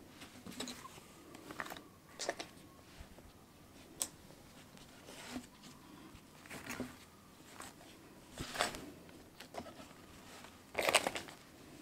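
Faint, irregular rustling and soft handling noises of hands moving bundles of silk embroidery thread and cross-stitch canvas, with a sharp tap about four seconds in and the loudest rustle near the end as the canvas sheet is lifted.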